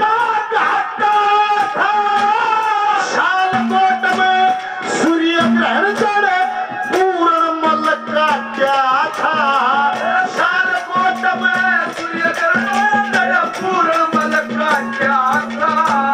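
Live Haryanvi ragni folk music: a male voice sings over melodic accompaniment, with a held low drone note and fast, even percussion strokes with a rattling, jingling sound.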